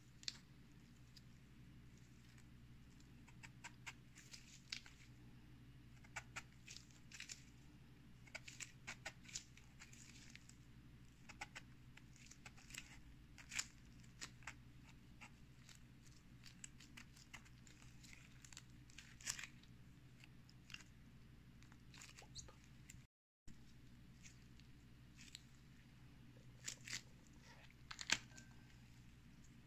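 Scattered light clicks and taps from handling food and utensils during kitchen preparation, over a faint steady low hum.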